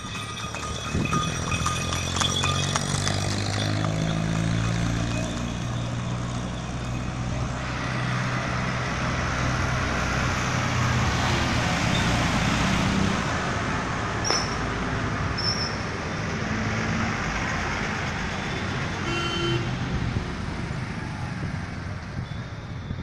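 Road traffic: a diesel engine's drone, then a Tata lorry passing close, loudest about halfway through, among cars and motorcycles, with a short horn toot near the end.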